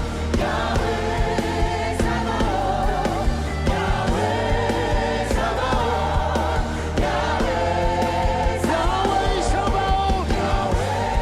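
Congregational gospel praise music: a choir and crowd singing together over a band with steady bass and drums.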